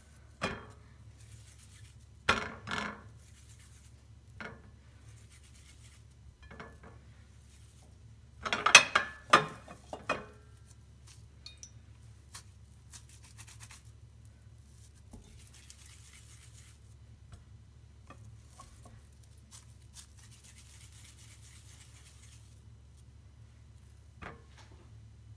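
Scattered light knocks and clinks of a glass baking dish and a steel pan as minced-meat filling is scooped and rolled into balls by hand, with a louder run of clinks about nine seconds in. A low steady hum sits underneath.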